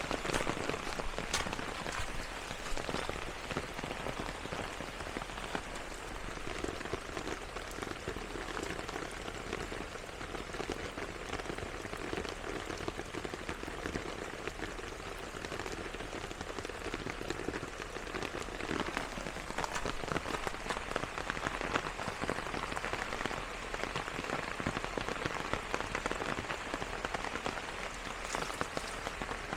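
Steady rain falling, a dense patter of many small drops with no letup.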